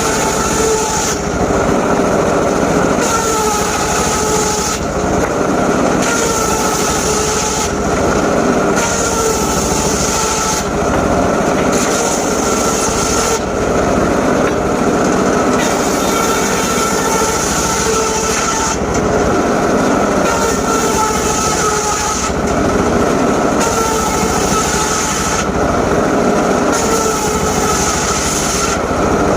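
Portable circular sawmill running and sawing teak, a loud steady machine whine with a high hiss that cuts in and out every second or two.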